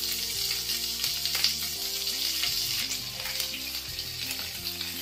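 Curry leaves and fennel seeds sizzling steadily in hot oil in a frying pan, the tempering stage of a curry.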